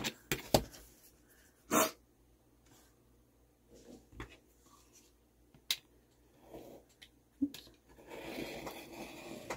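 Taps and clicks of a ruler and a plastic sheet being set down and positioned on a cutting mat, with one louder knock a couple of seconds in. Near the end comes about a second and a half of steady scraping as a craft knife is drawn along the ruler, cutting a strip off the plastic folder sheet.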